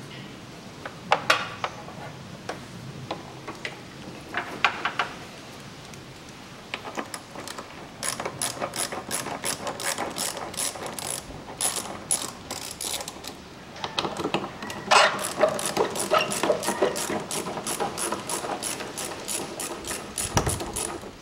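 Hand socket ratchet clicking in quick runs, about five clicks a second, as bolts on the air filter housing are turned. A few sharp metal tool clinks come in the first few seconds.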